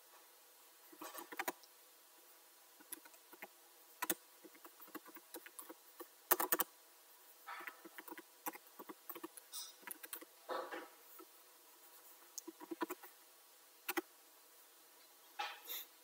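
Computer keyboard typing: irregular runs of sharp keystroke clicks separated by short pauses.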